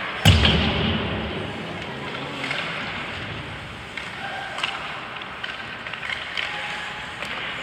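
A sharp bang against the hockey rink boards about a third of a second in, with a low boom that dies away over about a second. After it, steady arena noise with scattered clicks of sticks and skates and faint voices.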